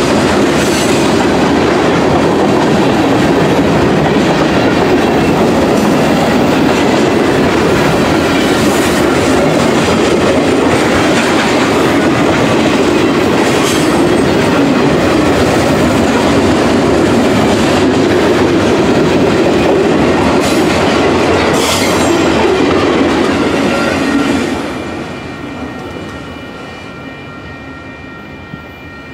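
Freight train of boxcars rolling past at close range, a loud steady rumble of wheels on rail. About 25 seconds in the rumble drops away as the last car passes, leaving a steady ringing at the grade crossing, typical of the crossing bell.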